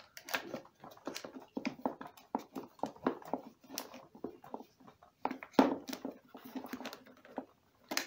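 Irregular plastic clicks and knocks as a vacuum cleaner's motor housing and its wires are handled and pressed into the plastic body, with the loudest knock about five and a half seconds in.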